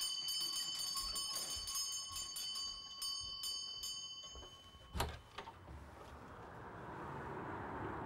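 Bell-like chimes ringing with several steady high tones, struck in quick succession, fading out after about four seconds. A sharp knock follows about five seconds in, then a steady hiss that swells.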